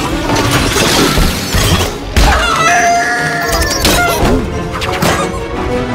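Orchestral cartoon score with a sudden crash about two seconds in, followed by a chicken squawking frantically.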